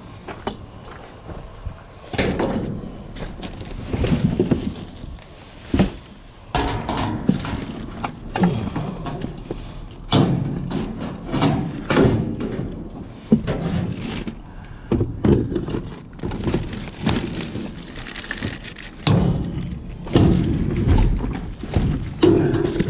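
Debris being dug through and pulled around in a dumpster: a steady run of irregular thuds, knocks and clatter as junk is moved and hooked.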